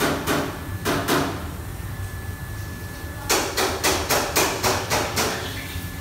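Sharp, rapid knocks of kitchen utensils striking a hard surface at a wok station. There are a few separate strikes in the first second or so, then a quick run of about eight at roughly four a second from about halfway through. A steady low hum runs underneath.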